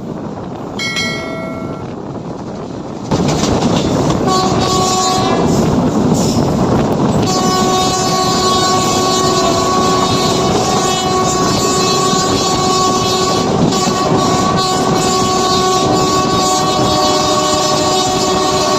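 Local passenger train passing at speed, its horn sounding over the rumble and clatter of the wheels. The train noise comes in suddenly about three seconds in, the horn gives a short blast a second later, then sounds in one long continuous blast from about seven seconds in.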